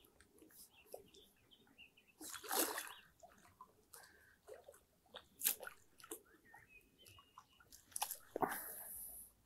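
Hooked common carp splashing at the water's surface as it is drawn over the landing net and netted, in several separate splashes, the biggest about two and a half seconds in and another near the end.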